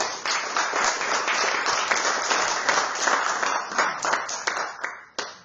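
Audience applauding, the clapping thinning out near the end and stopping.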